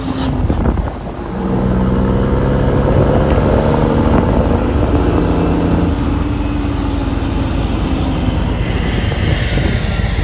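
Scania truck's diesel engine rumbling through its aftermarket exhaust, a steady deep note. A short burst of noise comes right at the start, and a hiss joins near the end.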